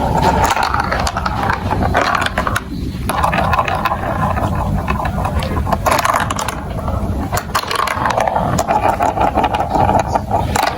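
Marbles rolling and rattling down a plastic building-block marble run, a dense clatter of small clicks over a steady rolling rumble.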